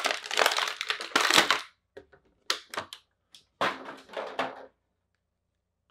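Clear plastic bag crinkling and crackling as an action figure is pulled out of it, in two spells with a few short clicks between them, stopping a little over three-quarters of the way through.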